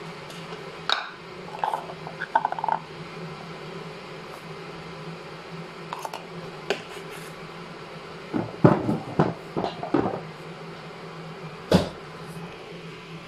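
Plastic food containers being handled on a table: a lid worked open and a plastic cup knocked and set down, giving scattered clicks and knocks, busiest about nine seconds in, with one sharp knock near the end. A steady low hum runs underneath.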